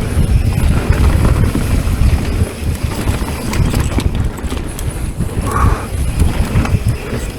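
Mountain bike riding downhill over a rough trail: tyres rumbling over dirt and rock with the bike rattling and knocking at each bump.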